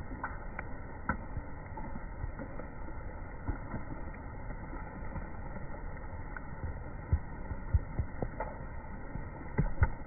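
Steady low rushing background noise, with a few soft knocks scattered through it.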